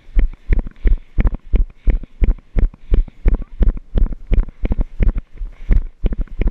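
Running footsteps on a paved road, each stride thumping heavily about three times a second through a body-worn camera, with a light hiss of wind.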